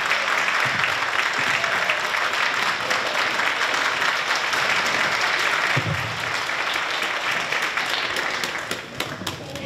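Crowd applauding, the clapping thinning out near the end to a few scattered claps.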